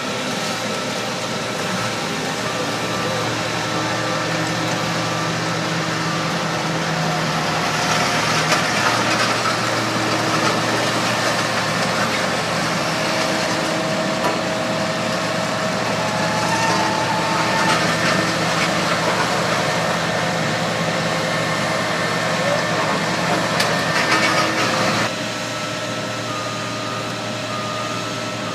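Caterpillar AP1000D asphalt paver's diesel engine and machinery running steadily, with a backup alarm beeping a few seconds in and again near the end. The machine noise drops abruptly about 25 seconds in.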